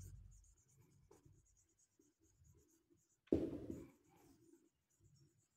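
Marker pen writing on a whiteboard: faint short strokes as a word is written, with one louder stroke about three seconds in.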